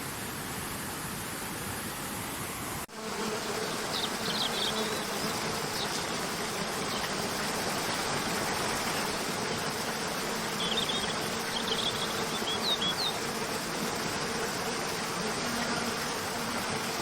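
Steady rush of falling water. About three seconds in it cuts to another stretch of rushing water, with a low steady buzzing hum and a few short high bird chirps.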